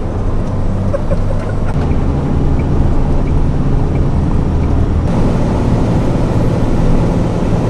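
A truck driving at highway speed: a steady low engine hum under road and wind noise.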